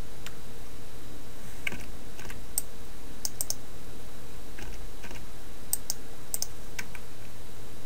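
Computer keyboard keys and mouse buttons clicking, about a dozen scattered clicks, some in quick pairs. Under them runs a steady hiss and low hum.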